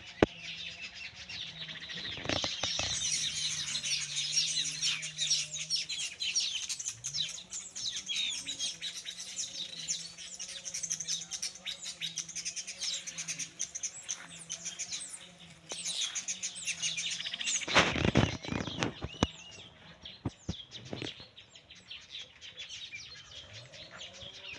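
A flock of weaver birds chattering, with many rapid high chirps overlapping. A loud rustling burst comes about three-quarters of the way in, after which the chirping thins out.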